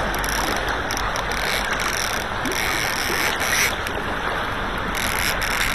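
River current rushing steadily around a wading angler, with a few brief splashes.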